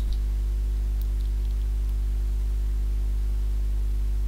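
Steady low electrical mains hum with its overtones running under the recording, with a few faint clicks about a second in.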